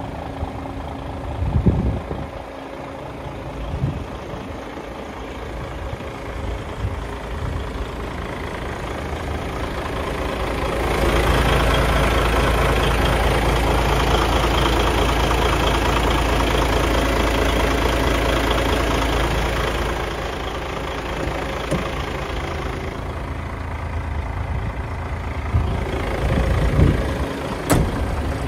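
DAF XF 106.460 tractor unit's PACCAR MX-13 six-cylinder diesel idling steadily. It is louder and fuller for a stretch in the middle, heard up close at the engine. A few short thumps come near the start and the end.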